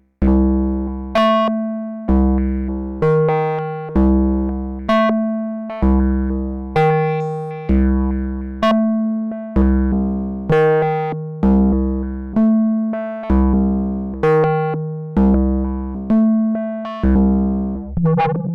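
Eowave Quadrantid Swarm hybrid synthesizer playing a step-sequenced pattern: plucked, decaying notes about one a second, moving between a few pitches, many with a deep bass underneath. Near the end the pattern turns busier.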